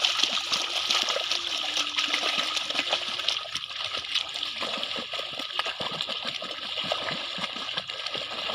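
Water and mud splashing and sloshing steadily as a pair of young bullocks pull a plough through a wet field.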